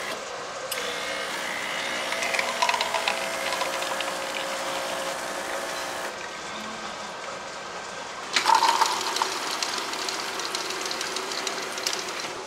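La Rhea coffee vending machine running as it dispenses coffee into a paper cup: a mechanical whir with rapid clicks, then the pour. About eight seconds in a drink dispenser starts pouring with a sudden, louder hiss.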